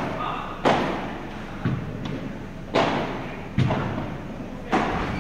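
Padel rally: the ball struck back and forth by padel rackets and bouncing on the court, about six or seven sharp hits roughly a second apart, each ringing on in the echo of a large indoor hall.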